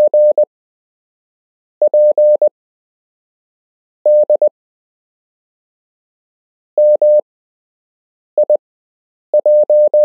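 Morse code practice tones: a single steady mid-pitched beep keyed on and off in quick dots and dashes, sending the characters of random amateur radio call signs. About six short characters are sent, each followed by a pause of one to two seconds.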